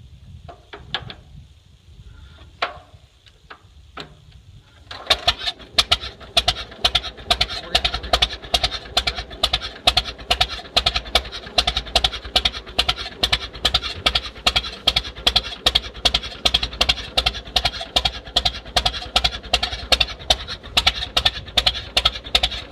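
1929 McCormick-Deering tractor being hand-cranked, with a few scattered clicks and knocks, then its engine catches about five seconds in and runs with a steady, sharp beat of exhaust pulses.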